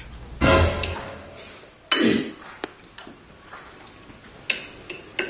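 Metal cutlery clinking against a ceramic plate during eating, heard as a few small sharp clicks near the end. Two louder sudden noises come first, about half a second and two seconds in.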